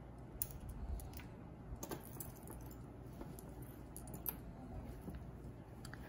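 Scattered light clicks and taps of a fine metal chain necklace and its round pendant being picked up and handled on a cloth-covered table.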